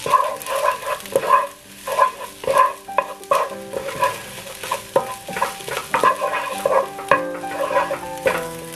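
Wooden spatula scraping and stirring fried rice around a nonstick granite-coated wok, in quick irregular strokes about two a second, with the rice sizzling in the hot pan.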